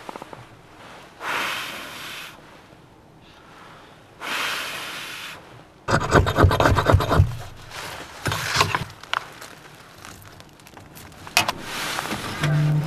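Two soft breathy hisses, then a stretch of rustling and scraping of sleeping-bag and tent fabric as someone moves about.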